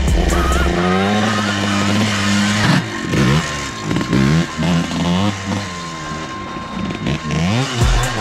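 Yamaha Blaster ATV's two-stroke single-cylinder engine being revved: held at a steady high pitch for about two seconds, then rising and falling in quick repeated throttle blips.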